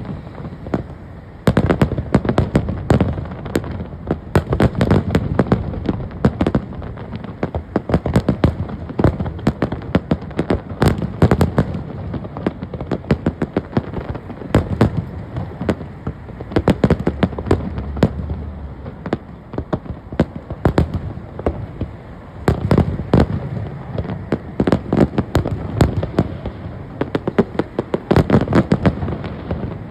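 Large fireworks display: a dense, continuous barrage of shell bursts and crackling bangs over a low rumble, many reports a second with no pause.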